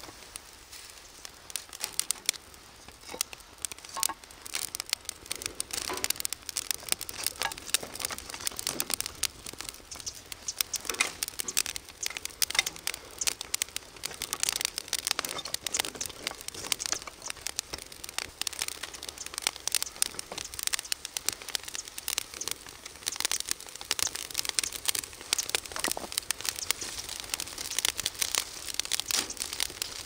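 Dry fallen leaves and split kindling catching fire, crackling and popping in a dense, irregular stream of sharp clicks that grows busier toward the end as the flames take hold.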